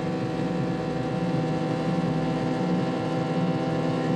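Motorcycle engine running at a steady speed, a constant drone with no change in pitch, from a film soundtrack.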